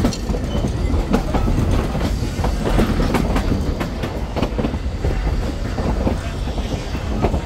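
Narrow-gauge passenger cars of the Durango & Silverton train rolling along the track, a steady rumble with irregular clickety-clack of the wheels over the rail joints, heard from an open car.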